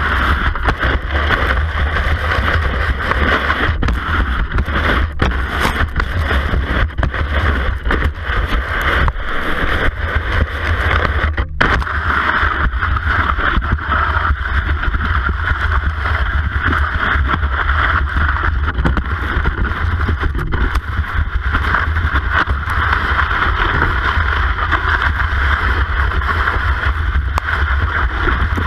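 Classic cross-country skis sliding in groomed tracks, heard through a camera mounted on the ski: a steady loud hiss of ski on snow over a low rumble, with scattered knocks as the ski jolts in the track. The sound cuts out briefly about eleven seconds in.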